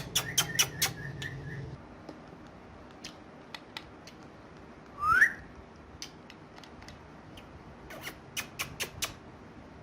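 A parrot gives one short rising whistle about five seconds in, with bursts of light sharp clicks and taps near the start and again near the end.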